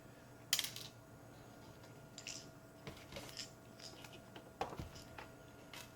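Scattered light clicks and taps of small hard objects being handled, a short cluster about half a second in and fainter ones after, over a faint steady hum.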